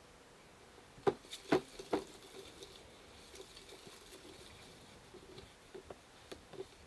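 Three sharp knocks close together about a second in, then scattered soft small handling noises over a faint, steady high tone.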